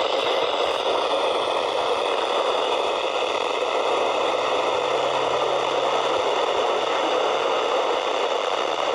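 Steady static hiss from a NOAA weather radio receiver tuned to a weak or empty channel, with no clear broadcast coming through.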